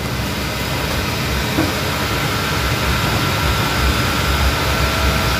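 Diesel engine of a Hitachi Zaxis 210F amphibious pontoon excavator running steadily under work as the long arm lowers the bucket into the canal, with a steady high tone joining about two seconds in.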